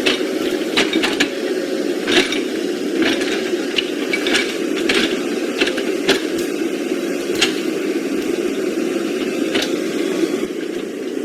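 Small electric motors and plastic gearboxes of radio-controlled construction models running steadily, with scattered sharp clicks and knocks.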